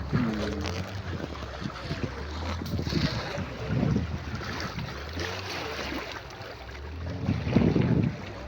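Motorboat engine running steadily as the boat moves over the water, with wind buffeting the microphone in louder gusts about four seconds in and near the end.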